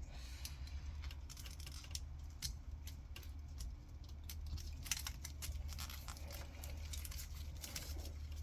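Faint handling noise from a car wiring harness being opened up and picked through by hand: scattered light clicks and rustles, over a steady low hum.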